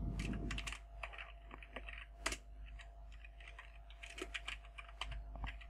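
Typing on a computer keyboard: quick, irregular key clicks in two runs with a pause in the middle, over a steady low hum.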